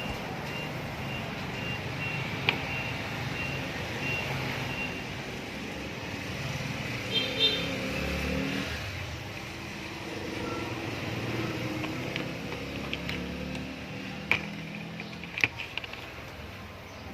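Steady motor-vehicle engine noise with a low rumble that swells and fades, and a few sharp clicks standing out above it. A faint beep repeats about every half second through the first few seconds.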